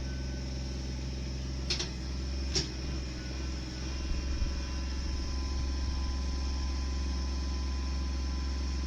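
An engine running steadily at one pitch, with two sharp knocks a little under a second apart near the start and a few dull thuds about four seconds in.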